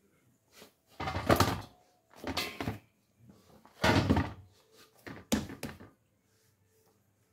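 Stiff beetroot dough kneaded by hand in a stainless steel bowl: four main dull thuds and squishes as the dough is pressed and turned against the metal, a second or two apart.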